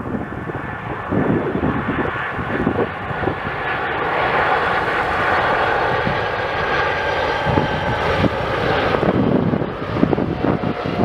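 Boeing 747 freighter's four jet engines on landing approach, growing louder as it nears and passes low overhead. A steady rushing roar carries a thin whine, and the sound is loudest about two-thirds of the way through.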